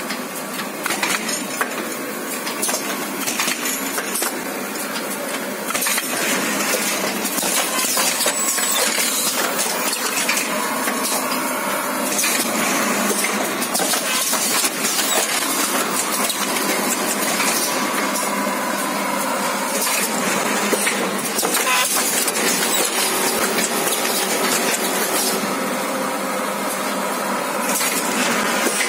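Paper cement-bag making machine (CBM 900 filling-bag machine) running: a steady, busy mechanical clatter of many sharp clicks over a continuous hiss, a little louder after the first few seconds.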